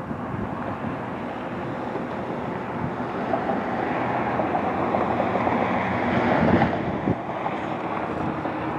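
Boeing 737-700 jet, with CFM56-7B turbofans, on final approach: a rushing engine noise that grows louder as the jet comes close, loudest about six and a half seconds in, then eases a little. Wind buffets the microphone.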